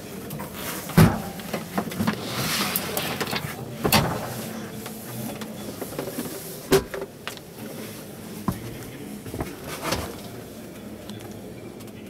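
Several sharp knocks and clicks inside a truck cab, loudest about a second in, with others near four, seven and ten seconds, over a steady background of exhibition-hall noise. A hiss rises about two seconds in and fades a second and a half later.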